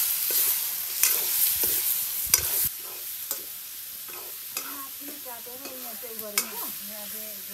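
Chicken curry pieces frying in a wok over a wood fire, sizzling as a metal ladle stirs and scrapes them round the pan. The sizzle is loud with sharp scrapes at first, then drops quieter about two and a half seconds in, with fewer scrapes.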